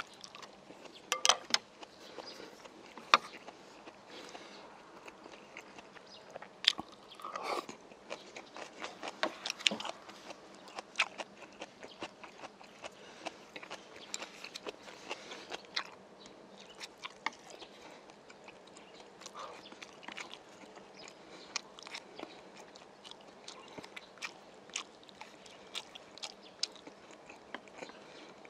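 A man chewing a mouthful of rice and grilled fish at close range, with irregular wet mouth clicks throughout.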